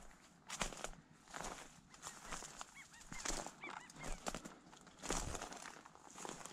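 Footsteps crunching through dry brush and grass, about one step a second. A bird calls faintly in short repeated chirps partway through.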